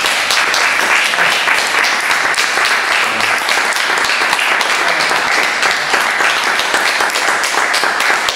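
Audience applauding, a dense and steady patter of many hands clapping.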